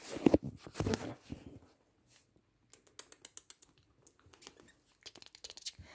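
Knocks and fabric rustling in the first second and a half, then a run of light, quick clicks and scratches as a whippet puppy moves about on a fleece blanket.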